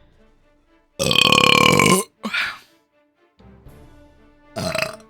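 A loud, drawn-out burp about a second long, starting about a second in, followed by two shorter, quieter sounds, over soft background music.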